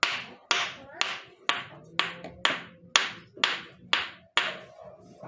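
Two stones struck together out of the water: ten sharp clacks, about two a second.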